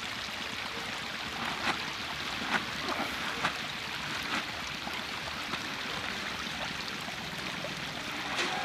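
Steady watery rush with a few small splashes and clicks, from a pond crowded with hybrid magur catfish fry at the surface.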